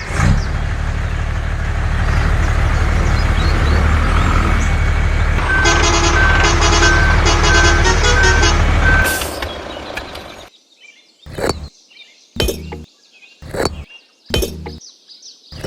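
A truck engine running steadily, with a reversing alarm beeping about twice a second partway through. The engine cuts off and is followed by a string of short, sharp knocks about a second apart.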